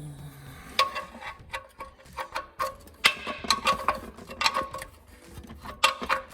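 Irregular metallic clicks and clinks, each with a short ring, from hand tools working on metal, most likely an oil filter being cut open.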